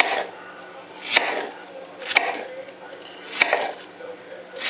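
Kitchen knife cutting through soft, overripe peaches, each cut ending in a sharp knock on the cutting board, about once a second.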